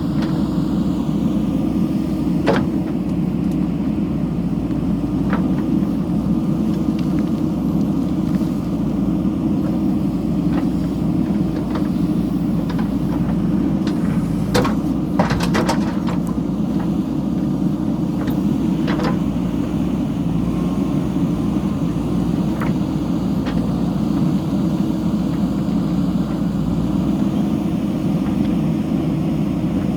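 JCB backhoe loader's diesel engine running steadily under work, with a few sharp metallic clanks, several close together about halfway through.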